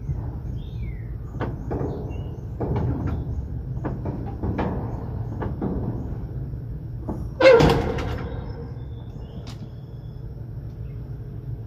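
Boxcar plug door being cranked shut by hand, its operating mechanism rotating the bars that pull the door in: a run of irregular metal clicks and knocks, then a loud metallic clank with a ringing tail about seven and a half seconds in.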